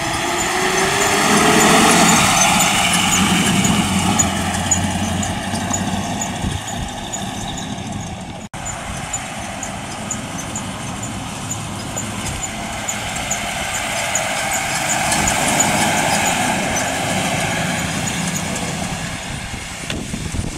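1932 Marmon Sixteen's aluminium V16 engine running as the car drives past, with the engine pitch rising as it picks up speed early on. The sound swells as the car comes close and fades as it moves off, twice, with a sudden break between the two passes.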